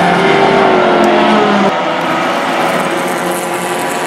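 Race car engines running at high revs, the pitch rising for about a second and a half before the sound changes abruptly.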